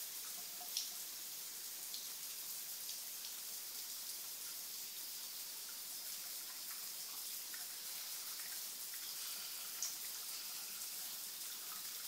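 Shower spray running steadily, a high even hiss of water falling into the tub, broken by two brief sharp ticks, one just after the start and one near the end.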